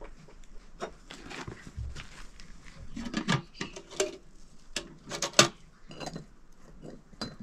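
Irregular clinks and knocks of utensils against pots and dishes, several sharp strikes a second, the loudest about five seconds in.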